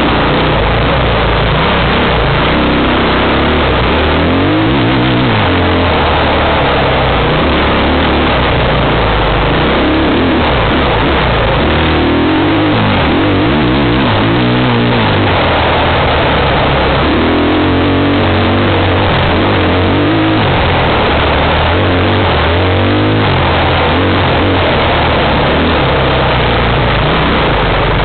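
Engine of an off-road vehicle running along a dirt trail, its pitch and load rising and falling every few seconds, under a constant loud rushing noise on the microphone.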